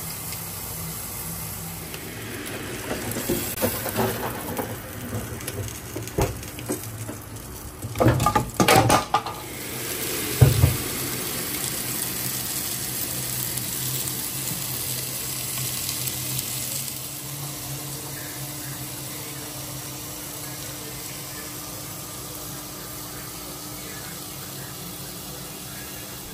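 Kitchen noise: a steady hiss, with a few clattering knocks of dishes or cookware about eight to eleven seconds in.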